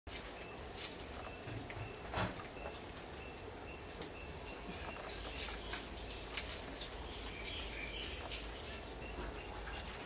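Garden ambience: a steady high-pitched insect drone, with faint short chirps repeating at an even pace and a few scattered clicks.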